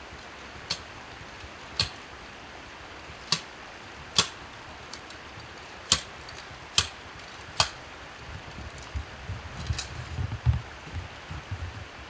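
Muzzleloader being reloaded after a missed shot: a series of sharp metallic clicks and taps about a second apart, then low, uneven handling thumps near the end.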